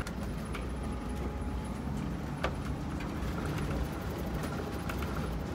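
Inside a motorhome driving along a dirt road: steady low rumble of the engine and tyres, with scattered clicks and rattles from the cabin.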